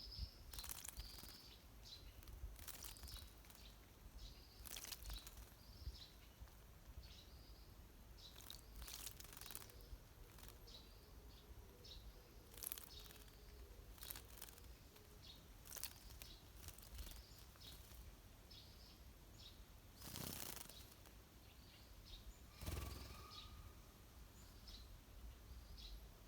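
Small wild birds chirping faintly with short high calls, broken several times by brief rustling bursts such as wing flutters or splashes.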